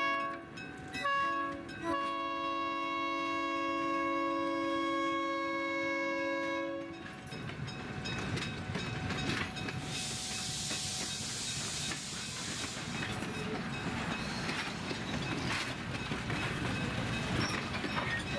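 Locomotive horn of the Abilene & Smoky Valley tourist train sounding, broken twice near the start and then held in one long blast that stops about seven seconds in. After that the passing coaches and open-air cars clatter and rumble along the track, with many sharp clicks from the wheels over the rail joints.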